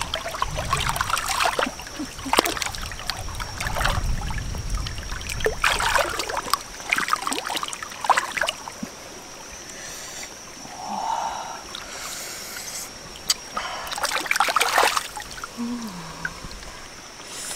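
Irregular splashing and trickling of water with handling clatter, under a faint steady high whine.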